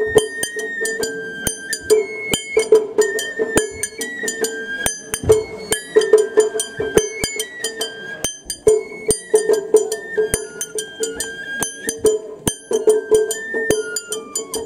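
Japanese shrine-festival hayashi music: a high flute melody stepping from note to note over frequent sharp metallic strikes of a small hand gong, with drums.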